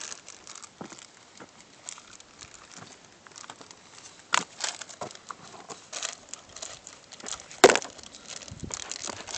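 Rustling and crackling handling noise with scattered clicks and scrapes, and a sharper click about four seconds in and again near the end.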